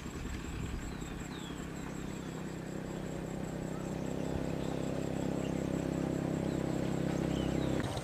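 A motor engine running at a steady pitch, slowly growing louder, with a few short high bird chirps above it.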